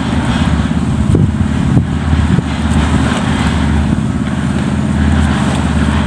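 An engine running steadily at a constant speed, with a couple of short knocks about a second or two in.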